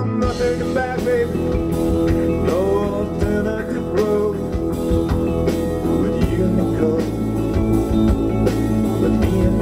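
Live rock band playing, a male singer's voice over guitars and drums.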